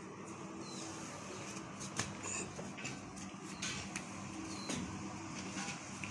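Clothes rustling as they are pulled off a clothesline and bundled up, with a few sharp clicks, the loudest about two seconds in, over a steady low hum.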